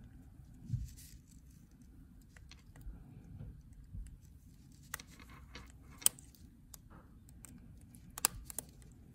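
Faint metal scraping and small clicks of a Bergeon 6767 spring bar tool prying at a watch's lug and the end link of a metal bracelet, with a few sharp ticks in the second half as the spring bar is worked loose.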